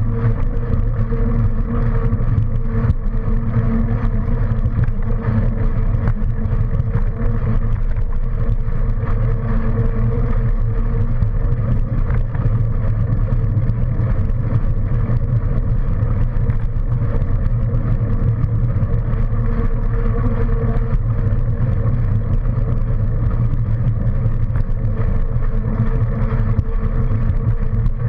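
Steady wind and road noise from riding along a road at a constant speed, with a constant hum running under it and no sudden sounds.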